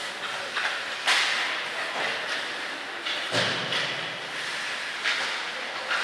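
Ice hockey play: skate blades scraping and hissing on the ice, with sharp clacks of sticks and puck about a second in and near five seconds, and a heavier thud a little past halfway.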